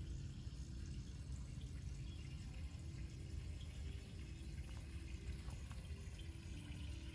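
Lakeside outdoor ambience: a steady low rumble with faint water sounds, and faint distant voices coming in from about halfway through.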